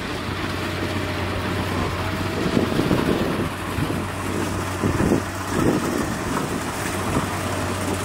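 Steady engine drone of rice combine harvesters working a paddy field, with irregular low rumbles swelling in the middle.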